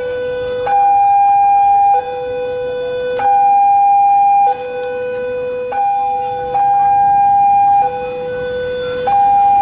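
Two-tone warning siren alternating between a high and a low note, each held about a second and a quarter, at a steady pitch and level.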